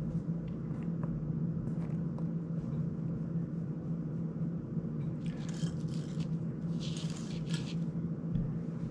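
Light handling of small drone parts and screws on a workbench: a few faint clicks, then two short rustles about five and seven seconds in, over a steady low hum.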